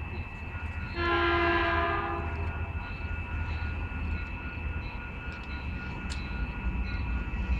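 Caltrain locomotive's horn sounding one blast of about a second as the train approaches, a steady chord, over a low steady rumble.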